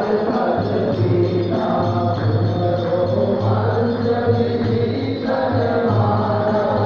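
Devotional music: a group of voices chanting together over a steady low pulse that comes in about half a second in.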